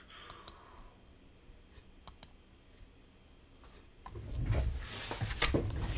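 Two pairs of sharp computer mouse clicks, then, about four seconds in, the scraping and low knocks of a cardboard box being handled on a table.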